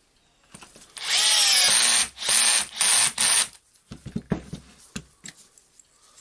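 Cordless power screwdriver driving the housing screws of an impact wrench back in: one longer run of the motor, then two short bursts, its pitch rising and falling as the screws seat. A few light knocks and clicks of handling follow.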